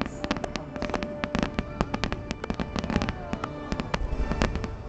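A dense barrage of fireworks bursting and crackling, many sharp bangs every second, typical of a show's finale, with music playing underneath.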